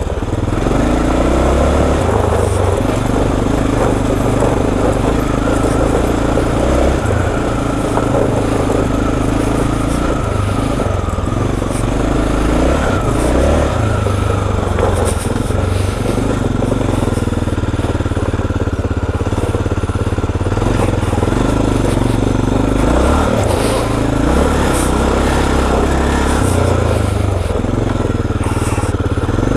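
Dual-sport motorcycle engine running at low to middling revs while climbing a gravel track, its pitch rising and easing every few seconds with the throttle.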